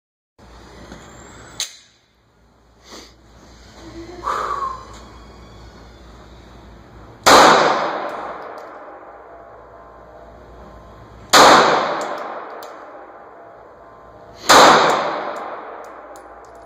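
Three 9mm pistol shots, about three to four seconds apart, each a sharp crack followed by a long echoing decay in the enclosed indoor range.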